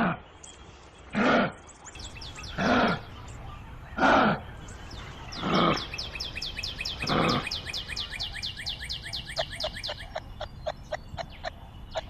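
An animal calling in short, loud, harsh calls about every second and a half, six in all. A fast, even, high chirping trill joins about two seconds in and thins to scattered clicks near the end.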